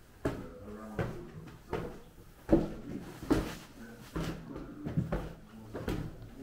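Footsteps walking at an even pace, about one knocking step every 0.8 seconds, with a short room echo after each.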